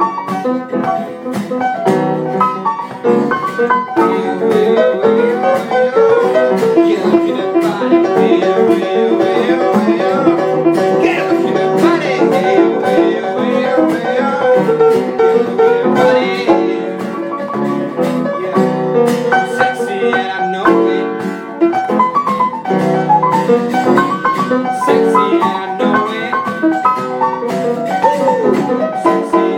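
Upright piano played solo, a busy, lively passage with a run of quick repeated notes in the first half.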